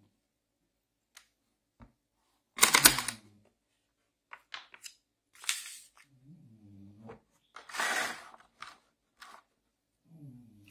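Hard plastic tool case being handled and opened: its latches snapping and the hinged lid clacking open, with sharp knocks and scrapes of hard plastic. The loudest clack comes about three seconds in and a longer scrape near eight seconds.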